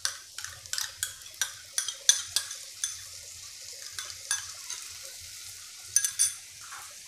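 A spoon scraping and tapping out a metal bowl of curd over a hot pan: a run of quick metal clicks, about three a second, that thins out after about four seconds, with two more clicks near the end. Faint sizzling of the pan underneath.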